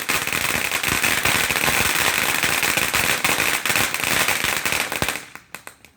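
Small consumer firework crackling: a dense, rapid run of pops and snaps that goes on for about five seconds, thins to a few last pops and then stops.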